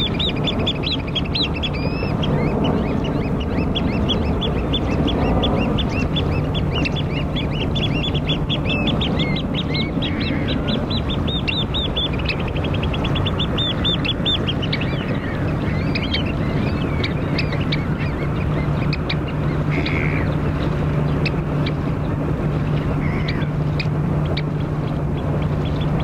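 A flock of Eurasian oystercatchers giving fast runs of high piping calls, about five notes a second, strong for the first half and thinning to scattered calls later. A steady low ship-engine drone grows stronger in the second half, over the even wash of shallow sea water.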